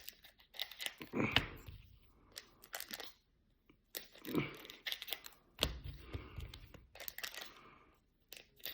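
Trading-card pack wrappers crinkling and crackling as they are cut open and handled, in a string of short rustles and clicks.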